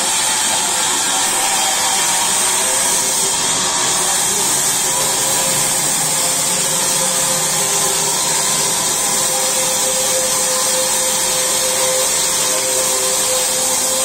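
Large vertical band sawmill running steadily as its blade rips lengthwise through a log being fed along the table.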